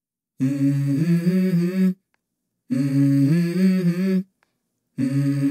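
A voice humming a short tune of stepped notes, in phrases of about a second and a half with brief silences between: two full phrases and a third beginning near the end.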